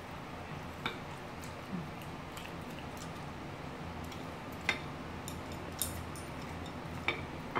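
A few light, sharp clicks of eating utensils against ceramic plates, spread a second or more apart, over a steady low room hum.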